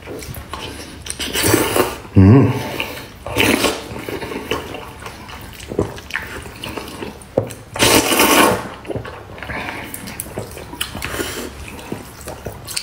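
Close-miked mukbang eating: a man slurping and chewing sour-and-spicy glass noodles, with loud wet slurps about one and a half, three and a half and eight seconds in, and a short low hum about two seconds in.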